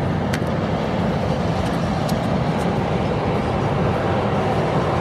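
Steady roar of road traffic, with a couple of faint clicks.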